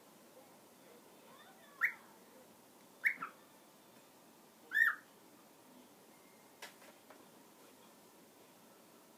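Cockatiel giving three short whistled chirps a second or so apart, then two faint taps of its beak on the cardboard box.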